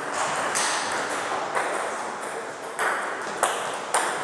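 Table tennis balls clicking off bats and tables, irregular sharp pings from rallies at several tables.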